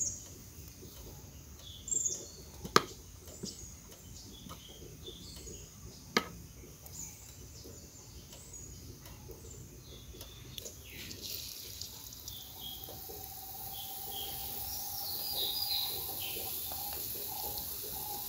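Birds chirping in the background, with two sharp clicks in the first third. From about two-thirds of the way in, a battered hummingbird leaf sizzles in hot coconut oil in a cast-iron pan, the hiss growing louder.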